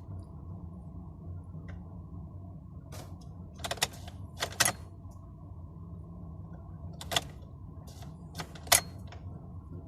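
A GMC Denali's starter solenoid clicks sharply about six times at irregular intervals as the key is turned, and the engine never cranks. This is a no-crank, clicking-only fault, which the mechanic traces to a corroded ground cable and terminal despite a fully charged battery. A steady low hum runs underneath.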